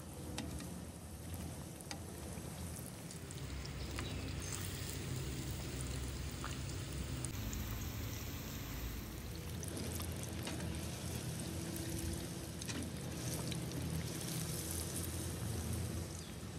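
Hot oil bubbling and crackling steadily as pork rib pieces deep-fry in a cast iron Dutch oven, with scattered small pops.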